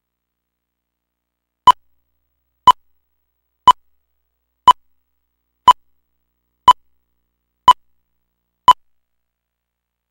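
Eight short electronic beeps, all at the same pitch and evenly spaced one a second, starting a couple of seconds in. A countdown tone of the kind that leads into a TV broadcast tape.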